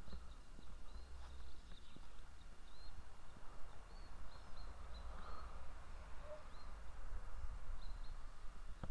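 A small bird chirping over and over, short high chirps about twice a second, over a steady low rumble on the microphone.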